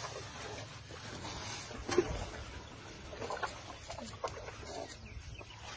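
Elephants feeding from a pile of fruit and vegetables: scattered crunches and knocks as they pick up and chew the food with their trunks, the sharpest about two seconds in, over a steady low hum.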